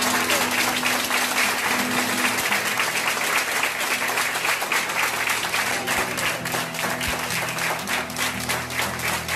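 A group of hospital staff applauding together, a dense, steady clapping that keeps going without a break, with soft music underneath.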